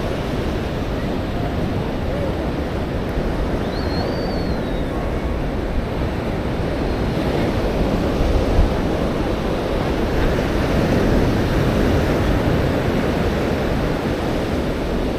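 Atlantic surf washing onto the beach in a steady rush of noise, with wind rumbling on the microphone. A brief high whistle-like tone rises and falls about four seconds in.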